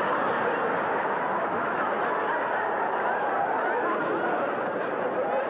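A live audience laughing as a crowd, many voices at once, holding steady without a break.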